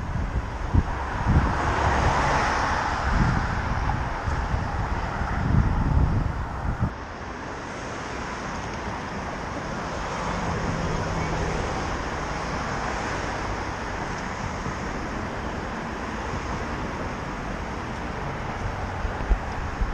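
City street traffic noise heard from a moving bicycle, with wind buffeting the microphone for the first several seconds, then dropping away. The traffic swells about two seconds in, then settles to a steadier hum.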